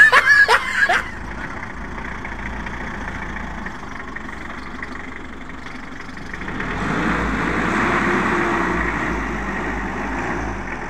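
Mitsubishi L300 pickup's engine running as the truck creeps along at low speed. About six and a half seconds in the engine grows louder for a few seconds, then eases back.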